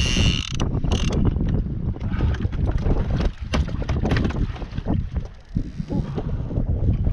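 Knocks and rattles of fishing rods and gear being handled aboard a kayak, over steady wind noise on the microphone and water. A fishing reel ratchets briefly right at the start and again about a second in.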